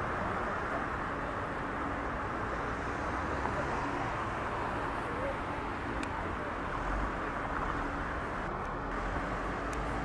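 Steady outdoor city background noise, the even hum of distant traffic, with no distinct event standing out.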